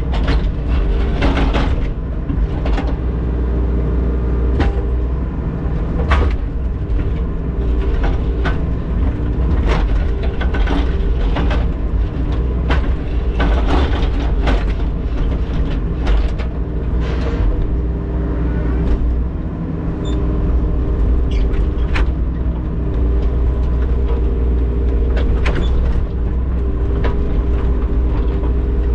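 Mini excavator's diesel engine running steadily under load while its narrow digging bucket scrapes and clanks in partly frozen ground, with frequent irregular knocks.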